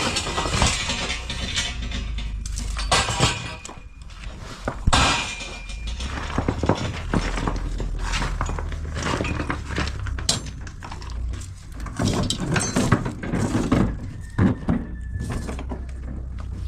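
Building work: irregular sharp knocks, cracks and clattering over a steady low hum.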